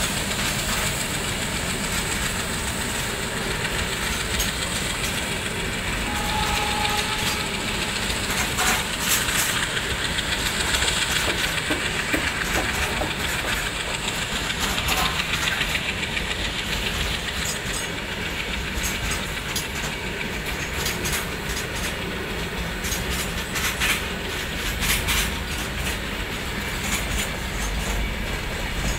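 A long freight train's open-top wagons rolling past at speed: a steady rumble of wheels on rail, broken by groups of sharp clicks as the wheels pass over the rails.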